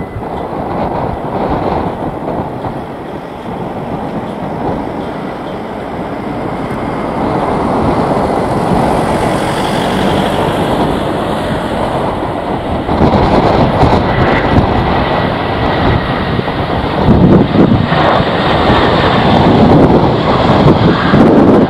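An airliner's engines running close by and growing louder, mixed with strong gusting wind buffeting the microphone. The noise steps up about two-thirds of the way in and is loudest near the end.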